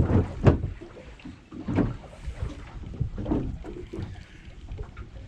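Wind buffeting the microphone on an open boat in several uneven low rumbles, the strongest at the start and about half a second in.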